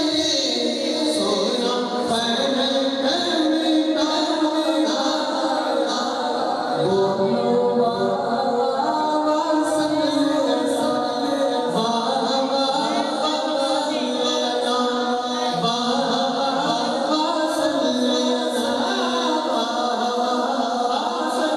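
Unaccompanied devotional singing of a Punjabi kalam (naat), with long, held melodic vocal lines.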